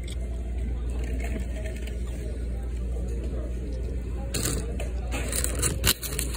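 Paper fast-food bag crinkling and rustling as it is handled, starting about four seconds in, over a steady low rumble.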